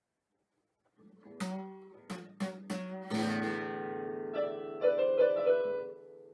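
Nylon-string classical guitar strummed and plucked in a few sharp chords, starting after about a second of silence. Held notes ring on under it, with a few brighter notes that the electronic keyboard beside it adds, before the sound fades near the end.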